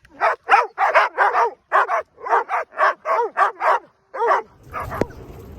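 A dog barking in a rapid run of short, high barks, many coming in quick pairs, which stops about four and a half seconds in; a low steady rushing noise follows near the end.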